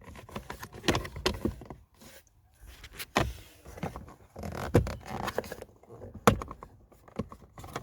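A plastic interior trim panel under a car's steering column being handled and pushed into place: rustling and scraping of plastic with a series of sharp clicks and knocks, the loudest about six seconds in.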